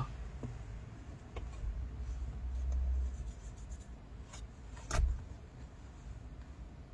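Quiet car-interior background with a low rumble and a few soft knocks. One sharper knock comes about five seconds in.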